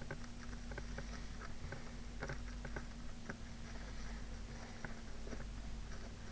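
Light, irregular clicks and taps of small paper flowers and craft bits being handled and pressed into place on a box, over a steady low hum.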